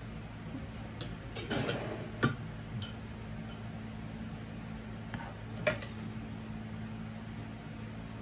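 Serving utensils clinking and scraping against a frying pan as stir-fried noodles are lifted out: a cluster of clicks about one to three seconds in and a sharper clink a little before six seconds, over a steady low hum.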